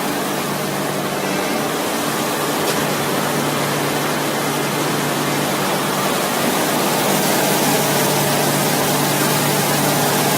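Basket and crate washing machine running: a steady rush of spraying water over a steady low motor or pump hum.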